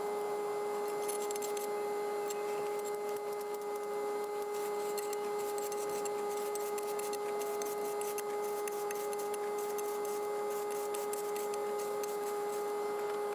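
A motor-driven machine running at a steady pitch, with a gritty, rasping noise and many fine ticks over it; the sound cuts off suddenly at the end.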